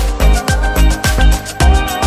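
Background music with a steady, heavy bass beat, about two beats a second.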